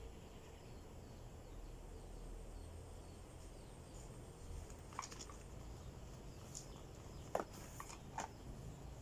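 Faint handling of packaging and drone parts during an unboxing: a few soft clicks and taps over low background noise, starting about five seconds in.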